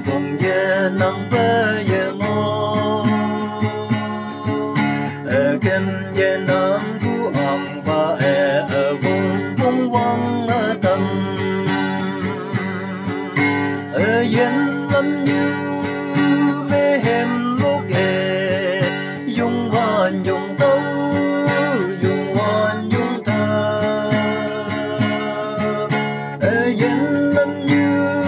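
A girl singing a song in a steady, slow melody, accompanied by a strummed acoustic guitar.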